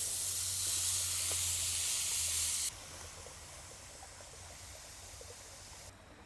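Steak sizzling in a hot pan over a campfire: a loud hiss that drops suddenly to a quieter sizzle with small crackles a little under three seconds in.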